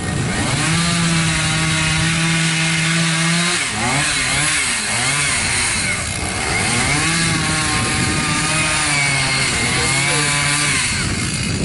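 Two-stroke chainsaw running at high revs as it cuts into a tree trunk for felling; its pitch dips and wavers about four seconds in, settles back to a steady high run, and drops off near the end.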